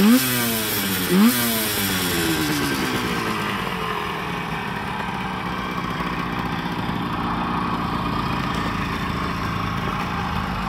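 1970 Suzuki T125's two-stroke twin engine, running soon after a cold start: the throttle is blipped twice in quick succession about a second apart, the revs rising sharply and dropping back. The revs then fall away over the next couple of seconds and the engine settles into a steady idle.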